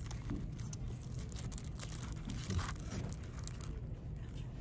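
Plastic shrink-wrap on notepads crinkling and rustling in short scattered bits as they are flipped through and lifted out of a display bin, over a low steady background hum.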